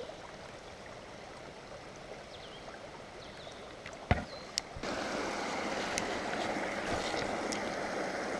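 Small mountain stream running, a steady rush of water that grows suddenly louder about five seconds in, with two sharp clicks just before.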